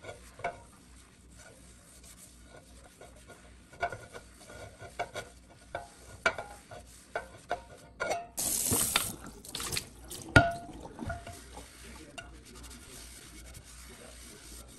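Non-stick frying pan being handled and cleaned: scattered light clicks and knocks as it is wiped with a paper towel on the cooktop, then a brief rush of water about eight seconds in and a loud metallic clank with a short ring a couple of seconds later.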